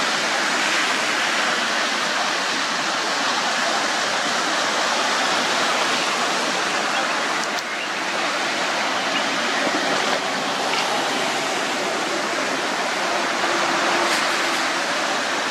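Steady rush of splashing water as vehicles drive through floodwater covering the road, their tyres throwing up spray.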